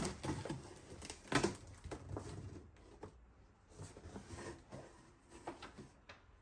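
A large cardboard box being opened by hand: irregular scraping and rustling of cardboard flaps and plastic air-cushion packing, with a few knocks, the sharpest about a second and a half in.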